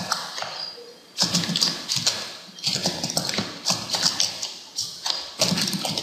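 Typing on a computer keyboard: quick runs of keystrokes in several bursts with short pauses between them.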